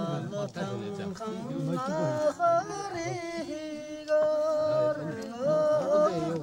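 Mongolian folk singing: a voice holding long notes, with sliding ornaments between them.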